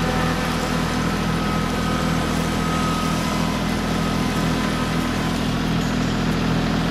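Kubota compact tractor's diesel engine running steadily under load as the tractor drags a heavy corrugated culvert pipe section along a dirt trail.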